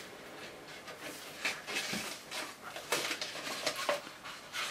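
A small child's soft whimpering and sniffly breaths, a few short sounds spread through a few seconds, as he is close to tears.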